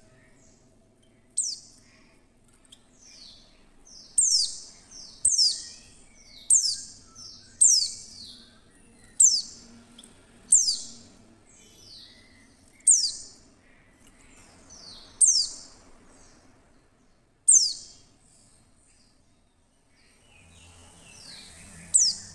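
Female white-eye (pleci) giving about a dozen sharp, high chirps that sweep downward, one every second or two at an uneven pace. These are the female calls used to provoke male white-eyes into singing.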